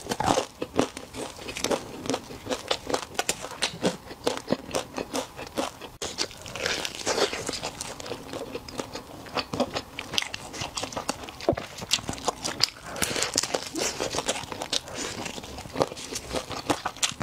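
Chewing and crunching of fried chicken, with a dense run of crisp crackles as the crispy-coated chicken is pulled apart by hand.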